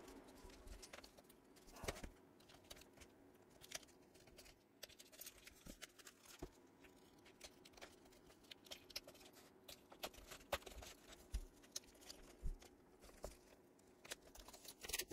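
Faint scratching, picking and crinkling as packing tape is worked loose from a shipping package, with many small irregular clicks.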